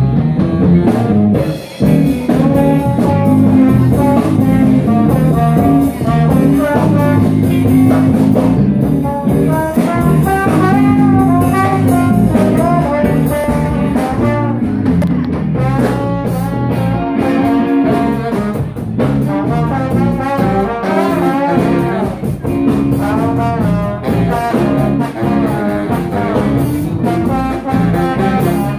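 Live band playing an instrumental passage: a horn carries a wavering melody over electric guitar and a drum kit.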